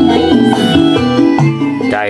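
A song played loud through a 3-way speaker cabinet with 12-inch woofers and 6-inch mids, powered by a 140-watt amplifier driver, as a sound test. The music gets quieter near the end.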